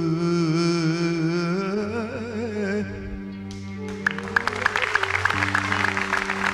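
A man singing an uzun hava, a free-rhythm Turkish folk song, drawing out a melismatic line with heavy vibrato that ends about three seconds in. Accompanying instruments hold steady tones beneath, and audience clapping breaks out about four seconds in.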